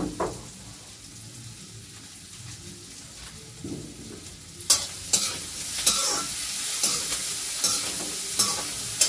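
Food going into hot oil in a kadai about halfway through, setting off a loud sizzle. A metal spatula then scrapes and clinks against the pan in a steady stirring rhythm, under the continuing sizzle.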